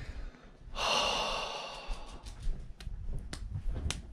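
A man's long exhaled sigh about a second in, in exasperation, followed by a few faint clicks.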